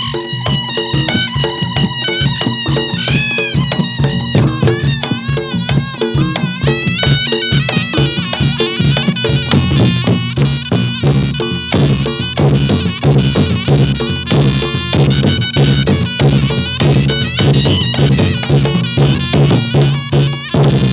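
Reog Ponorogo gamelan music for a jathilan dance: a shawm-like slompret plays a wavering, bending melody over steady gong tones and a driving drum rhythm.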